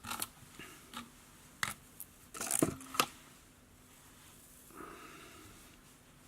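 Small handling noises of fly-tying work at the vise: a run of sharp little clicks and taps of tools and materials, with a brief scrape near the middle and a soft rustle near the end.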